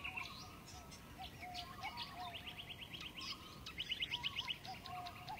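Birds chirping in the background: short repeated chirps, with a fast high trill about two seconds in and another near four seconds.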